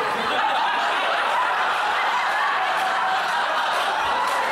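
A theatre audience laughing and chuckling, many voices overlapping.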